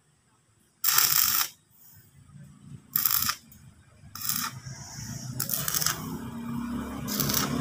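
Stick (arc) welding on a steel gate frame: the arc is struck in five short crackling, hissing bursts of about half a second each, the short starts of tack welds, and settles into a steadier run near the end. A low hum builds underneath.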